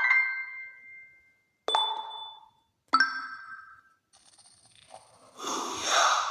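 Amazon Fire HD tablet's built-in notification sounds played one after another: three short separate chimes, each ringing out, then a swelling shimmer near the end.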